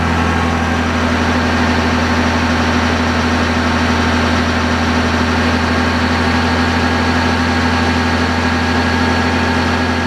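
Kubota B7100 tractor's three-cylinder diesel running steadily, turning a NorthStar PTO generator under load from battery chargers.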